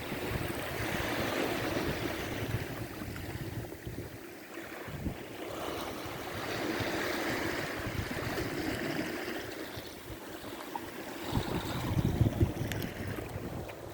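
Sea waves washing on the shore, swelling and ebbing every few seconds, with wind buffeting the microphone in low rumbles, strongest about three-quarters of the way through.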